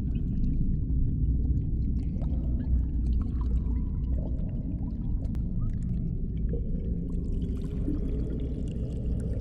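Low, steady rumbling drone with faint eerie tones that waver and slide in pitch above it; a thin high hiss comes in about seven seconds in.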